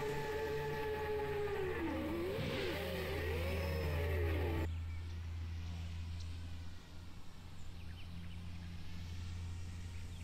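7-inch FPV quadcopter's motors and propellers, on 25-degree angled mounts, whining steadily, then wavering up and down in pitch as the throttle changes. The whine cuts off abruptly about halfway through, leaving a fainter low hum.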